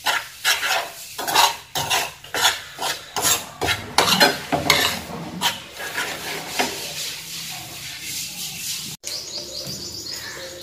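A spoon scraping and stirring dry roasted flour mix around a nonstick frying pan just taken off the heat, in quick repeated strokes, about two to three a second. The strokes grow fainter in the second half.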